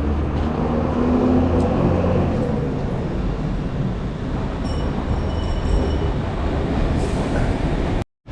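Street traffic noise dominated by the low rumble of a heavy vehicle's engine, strongest in the first few seconds, with a faint high squeal about five seconds in.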